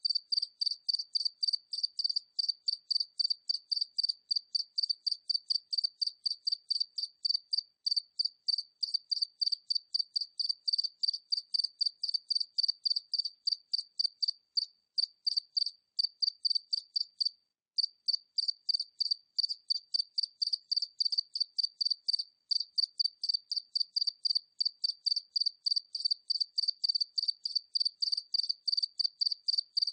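A single cricket chirping steadily at medium distance, a high-pitched chirp about three times a second, with a brief break about seventeen seconds in.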